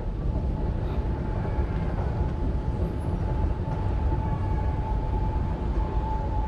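Escalator running: a steady low mechanical rumble with a thin steady whine that grows louder near the end.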